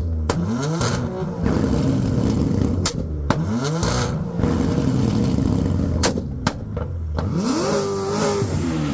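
Performance car engines revved hard again and again, each rev rising in pitch and falling back, with sharp exhaust pops and bangs between the revs. Near the end one engine is held at high revs for about a second before it drops.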